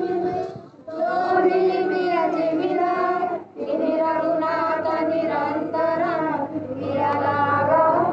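Group of women singing a devotional aarti song together, unaccompanied, in long held phrases with two brief breaks for breath.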